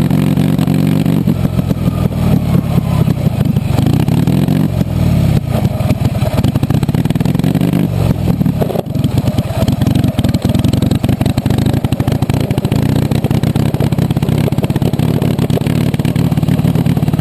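1920 Indian Scout side-valve V-twin engine running, its pitch rising and falling as the throttle is worked, with a brief dip about nine seconds in.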